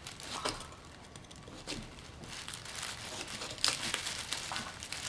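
Irregular crinkling and rustling with scattered short cracks and ticks as a tough, sticky parami fruit is cut and pried into small pieces by gloved hands.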